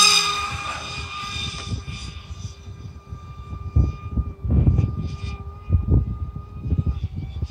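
Electric motor and propeller of a small home-built RC plane whining at a steady high pitch in flight, slowly fading as the plane flies away. Irregular low rumbles on the microphone come and go from about halfway through.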